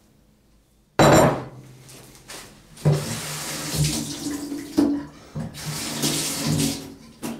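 Kitchen tap running into the sink as something is rinsed under it, with a sharp clatter about a second in and knocks of handling during the rinse.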